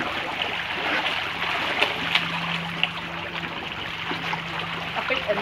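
Water splashing and churning as a dense school of large fish thrashes at the surface to take food from a hand, with a sharp splash now and then. A faint steady low hum runs underneath.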